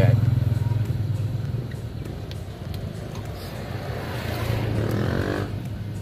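A motor vehicle engine running nearby: loudest at the start, dying away, then swelling again about four seconds in.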